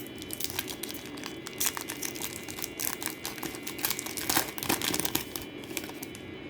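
Plastic trading card pack wrapper being torn open and crinkled by hand, a busy run of irregular crackles that is densest in the middle.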